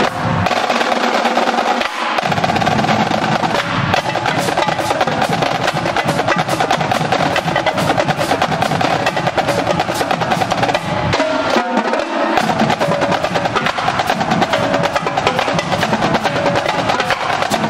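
Marching drumline playing a fast cadence on Yamaha tenor drums, snares and bass drums: rapid, continuous stick strokes. The low bass drums drop out briefly near the start and again about two-thirds of the way through.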